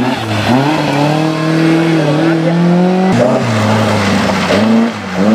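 Rally car engine revving hard, its pitch climbing and holding high, dropping sharply about three seconds in, then climbing again, with tyres squealing.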